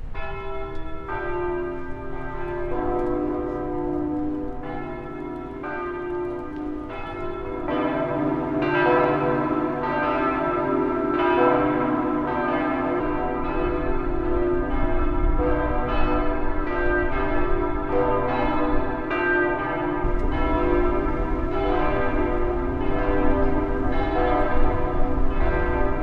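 Berlin Cathedral's church bells pealing, several bells striking over one another with each stroke ringing on. The peal grows fuller and louder about eight seconds in.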